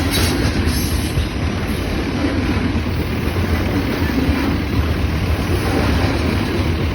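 Freight train cars rolling past: a steady rumble and rattle of wheels on rail, with a brighter clatter about a second in.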